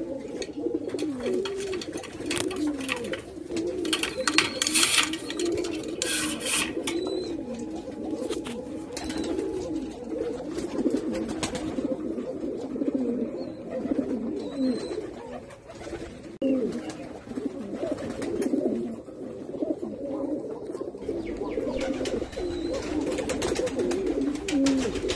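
A loft of domestic fancy pigeons cooing: many low, wavering coos that overlap into a continuous chorus. A few brief rustling noises come about two, four and six seconds in.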